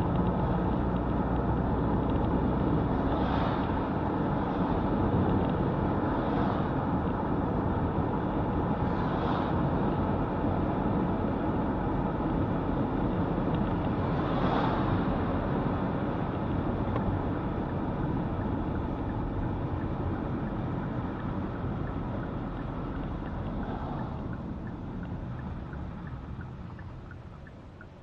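Steady rushing wind noise over a low rumble, with a few brief swells, fading away over the last few seconds.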